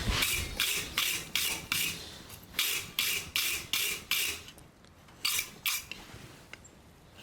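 Rasping strokes scraped back and forth over the freshly forged steel knife, about two and a half strokes a second in three runs: six, then five, then two near the end.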